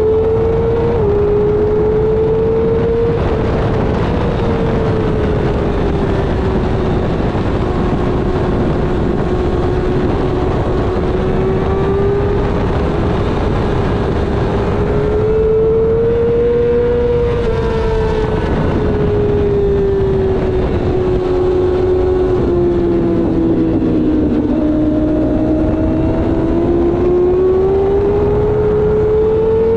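Yamaha R6 sport bike's inline-four engine held at high revs, its pitch rising and falling smoothly with the throttle over several seconds at a time, under heavy wind rush. The pitch climbs around 17 s, dips lowest around 24 s, then climbs again near the end.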